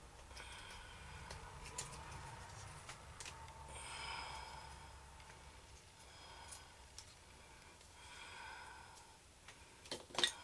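Faint handling of dinosaur-skeleton puzzle pieces: scattered light clicks and taps as pieces are fitted onto the model, with a louder cluster of clicks near the end. A few faint, short hums come and go in between.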